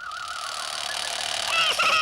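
Cartoon sound effects. A wavering, whistle-like tone runs over a hiss, then about halfway through several squeaky squawking cries swoop down in pitch.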